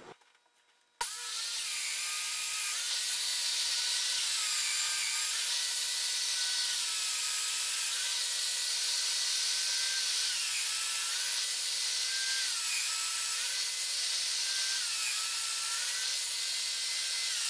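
Festool Domino joiner running with a steady high whine and hiss, starting abruptly about a second in. Every couple of seconds its pitch drops briefly and comes back up as the spinning cutter plunges into the board's end grain to cut a mortise and is drawn back out.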